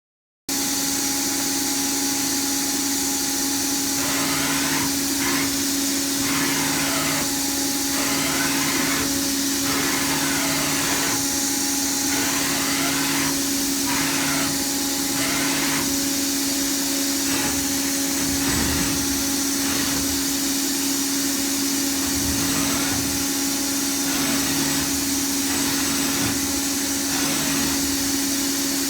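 FANUC ROBODRILL α-T21iFLa vertical machining center running, starting abruptly about half a second in: a steady motor hum and hiss, with machine sounds that switch on and off over and over, about a second apart.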